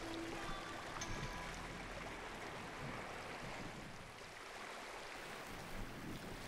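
Sea water rushing and lapping in a steady, even wash.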